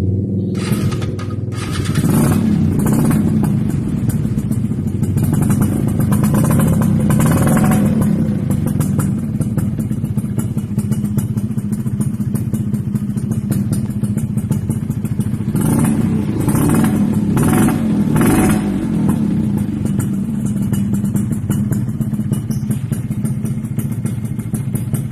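Suzuki 110 underbone motorcycle with an ORP7 racing exhaust, running at idle and revved in short throttle blips several times, sounding crisp and rattly through the aftermarket pipe.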